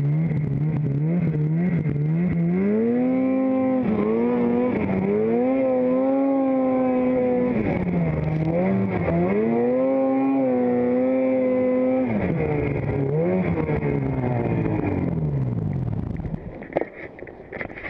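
Snowmobile engine revving under load as the sled is driven across rough avalanche debris, its pitch climbing, dipping and holding several times. About sixteen seconds in the engine falls away and the sound turns to scattered knocks and crunches.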